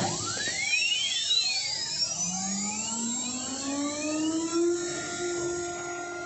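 CNC machine spindle motor spinning up: a whine with several tones rising in pitch over the first few seconds, levelling off at a steady speed about two-thirds of the way through.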